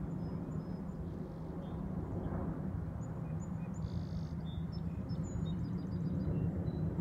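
Scattered faint high bird chirps, busiest about halfway through, over a steady low rumble.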